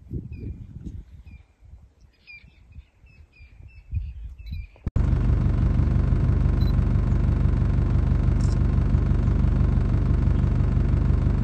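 A bird gives short repeated chirps over a low rumble. About five seconds in, the sound cuts abruptly to a vehicle engine running loudly and steadily with a low hum.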